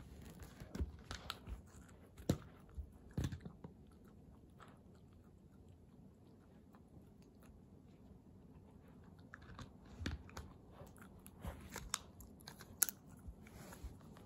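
Kooikerhondje puppy chewing and gnawing a hard chew treat: irregular crunches and clicks of teeth, busiest in the first few seconds and again from about ten seconds in, with a quieter stretch in the middle.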